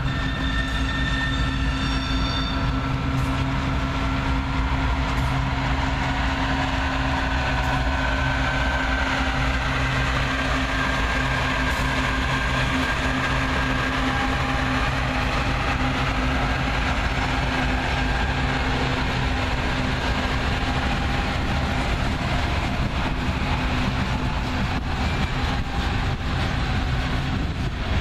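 Diesel-hauled BNSF freight train passing: locomotive engines running with a steady low drone and steel wheels rolling on the rails, with thin high wavering tones in places.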